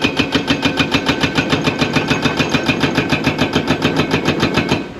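Hydraulic breaker on a large excavator hammering rock in a rapid, even run of about ten blows a second, stopping just before the end, with the excavator's diesel engine running underneath.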